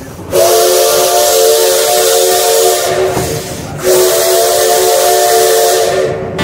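Old steam locomotive's whistle blowing two long blasts, each a steady chord of several tones over a hiss of steam.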